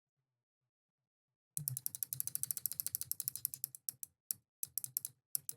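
Typing on a mechanical keyboard with clicky Kailh Box White V2 switches. A fast, dense run of sharp key clicks starts about a second and a half in, then thins to separate keystrokes near the end.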